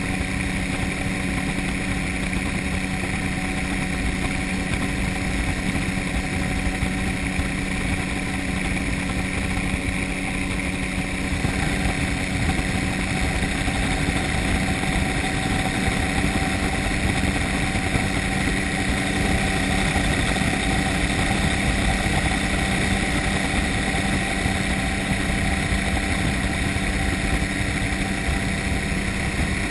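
Gyrocopter engine and propeller running steadily in flight: a constant drone with a steady rushing noise beneath it.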